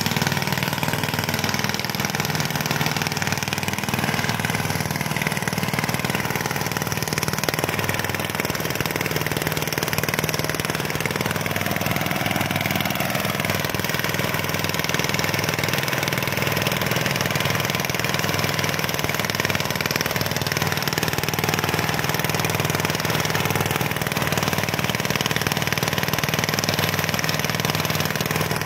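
A small engine running steadily at an even speed, with no pause or change in pace.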